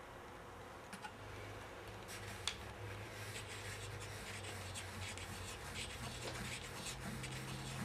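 Wooden parts of a hand-turned slotted-yoke (Scotch yoke) mechanism rubbing and ticking as the pin slides in the yoke's slot, with a sharp wooden tap about two and a half seconds in and the light clicking going on from about three seconds in.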